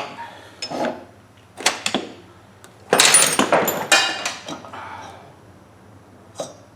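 Metal lathe parts clanking and scraping as the tailstock is taken off and the workpiece is freed. There are several short bursts, the loudest and longest about three seconds in, and one sharp knock near the end.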